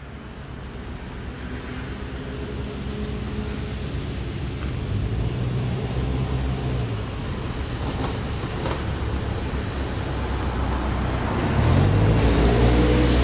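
A car's engine and exhaust approaching and growing steadily louder, with a rev partway through; near the end it revs up again and is at its loudest.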